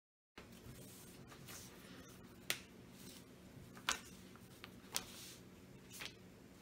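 Sharp, short clicks and taps from a felt-tip marker and its cap being handled and used on paper at a table, four louder ones roughly a second apart over faint room tone that starts just after a brief dead silence.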